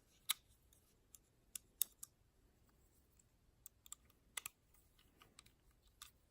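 Faint, irregular small clicks and taps of metal folding-knife parts and a small screwdriver being handled during reassembly of a CIVIVI Anthropos.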